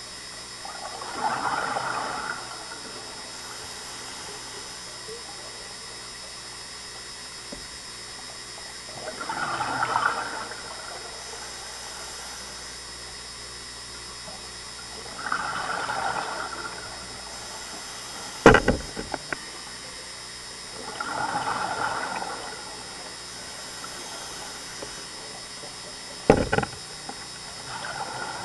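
Scuba diver breathing through a regulator underwater: five bursts of exhaled bubbles about every six seconds, over a steady hiss. Two sharp knocks in the second half are the loudest sounds.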